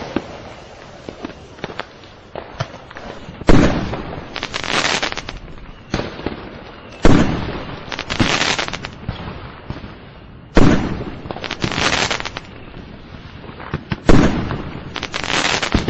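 Fireworks going off: a sharp bang about every three and a half seconds, four in all, each followed a second later by a crackling burst that lasts about a second, with small scattered pops in between.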